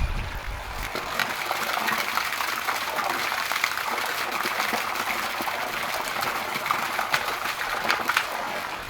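Water gushing and splashing steadily from a sump pump's lay-flat discharge hose, the pump running properly at full flow. A low rumble fades out about a second in.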